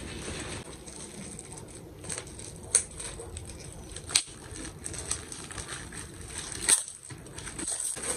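Plastic packaging crinkling and rustling as a rolled desk mat is drawn out of a poly mailer bag and its clear plastic wrap is handled, with three sharp crackles of the plastic along the way.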